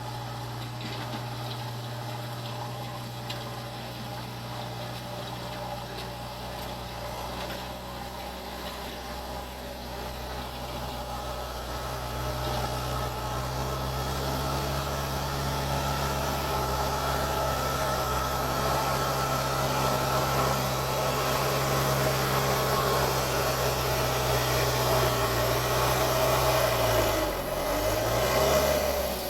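JCB 3DX backhoe loader's diesel engine running steadily, getting louder about halfway through, with its pitch dipping briefly near the end.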